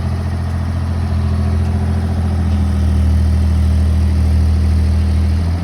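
Engine of the heavy machinery lifting the boulders, running steadily at a low, even pitch, a little louder through the middle and easing briefly near the end.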